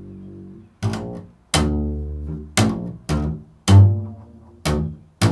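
Improvised low plucked string notes, played slowly and freely: about seven notes, each struck sharply and left to ring and die away.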